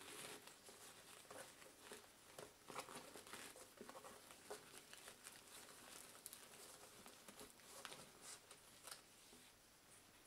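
Faint rustling and crinkling of satin ribbon and wrapping paper as a bow is tied and tightened by hand, with small scattered scuffs and clicks.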